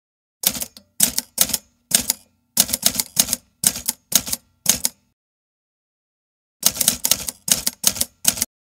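Typewriter keys striking as a sound effect, in step with the letters typing on: about a dozen irregular clacks, a pause of under two seconds, then about half a dozen more.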